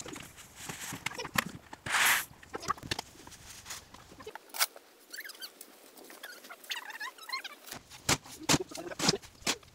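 A bucket of sand tipped out onto a plywood board, a brief rush of pouring sand about two seconds in, followed by knocks and clatter of plastic buckets being handled. There are a few faint squeaks in the middle.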